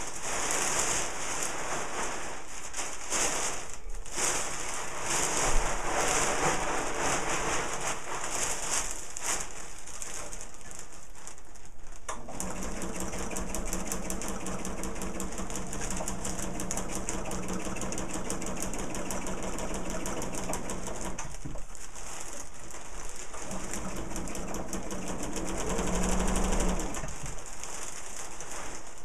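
Kite fabric rustling as it is handled for about the first twelve seconds. Then a sewing machine stitches steadily through the rolled-up layers of the kite to sew the burrito-roll seam. It stops briefly about twenty-one seconds in, starts again, and is louder for a moment near the end.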